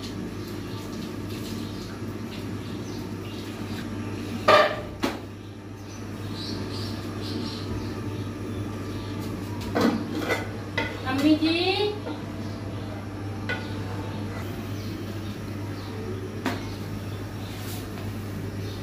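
Steel cooking pots and utensils clanking: a couple of sharp knocks about four and a half seconds in, then a cluster of clanks with a short rising squeak between about ten and twelve seconds, and a few light taps later, over a steady low hum.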